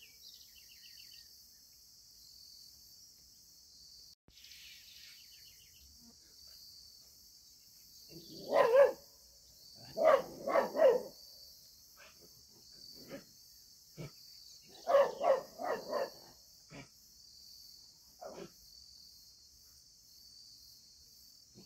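A dog barking in short runs: a bark about eight seconds in, three quick barks around ten seconds, four more around fifteen, then a couple of single barks, over a steady high chirring of insects.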